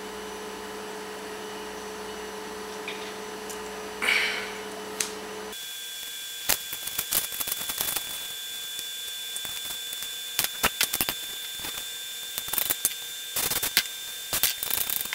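A steady electrical hum, then from about five seconds in a faint high steady whine under many irregular clicks and crinkles of paper being folded and handled.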